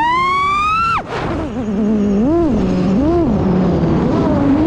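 FPV racing quadcopter's brushless motors whining on a 6S battery, pitch climbing then dropping suddenly about a second in as the throttle is cut. The low whine then rises and falls in a few short throttle blips before climbing again near the end.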